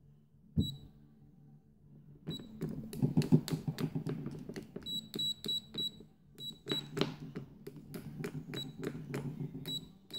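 EEVblog BM235 multimeter's continuity beeper giving short, broken high beeps as the metal test-probe tips are scraped and tapped together, with sharp clicks of tip on tip. The beeper catches only in fits: it grabs the contact when the tips are slid slowly, slower to latch than a Fluke's.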